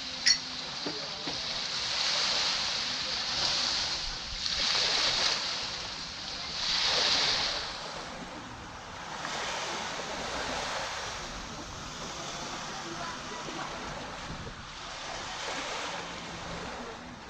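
Small waves breaking and washing up a sandy beach, swelling and fading every few seconds. A single sharp click sounds just after the start.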